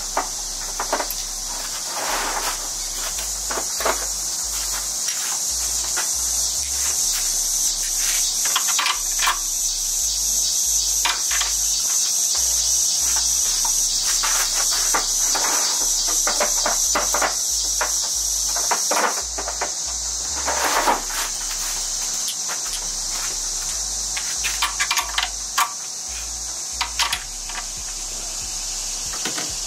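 A steady, high-pitched chorus of insects, with scattered light clicks and knocks.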